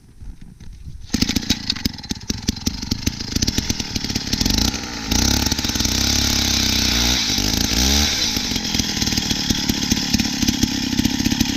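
Power ice auger's small engine starting up about a second in and drilling a hole through lake ice, its pitch sagging and recovering midway as the bit bites under load.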